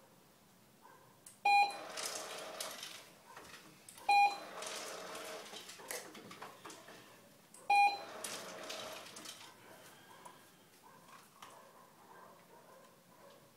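Three short electronic beeps a few seconds apart from a remote reward device, each followed by a second or so of noisy rustle.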